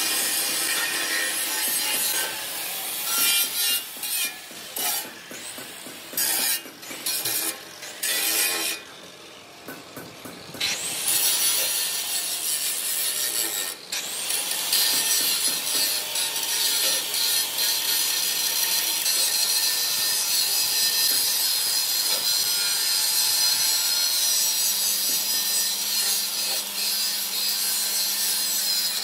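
Metal being cut, ground or filed: a harsh rasping, scraping noise that comes in short spells with gaps for the first ten seconds or so, then runs continuously. A low steady hum joins near the end.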